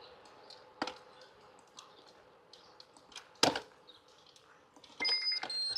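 Quiet stretch with two sharp clicks, then near the end a short run of electronic beeps that step between a few high pitches.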